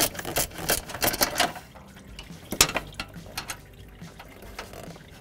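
Socket ratchet clicking in quick runs as the AC condenser's small mounting bolts are worked loose, with one sharper click about two and a half seconds in.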